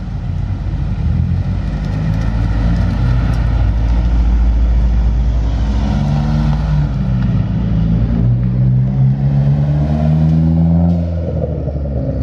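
Cars pulling away one after another, their engines and exhausts running loud. The engine pitch rises in the second half as a car accelerates off.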